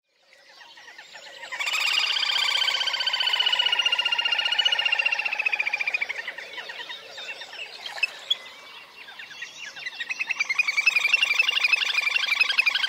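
Little grebe giving its whinnying trill: a long, very rapid trill that starts about a second and a half in and slowly falls in pitch before fading. A second trill builds up near the end.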